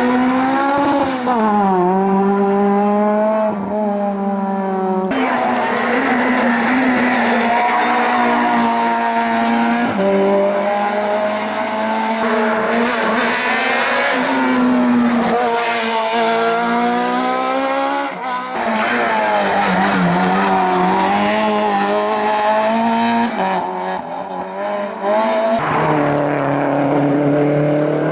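Hillclimb race cars at full attack, one after another, with engines revving up and dropping back through gear changes and corners, and tyre squeal. The sound changes abruptly several times as one car gives way to the next.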